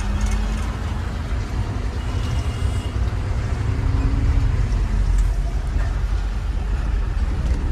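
Truck on the move: a steady, deep engine and road rumble with no change in pace.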